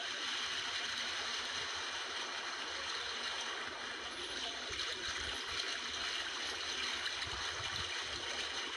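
Steady wash of sea water lapping against shoreline rocks, with faint low rumbles mixed in.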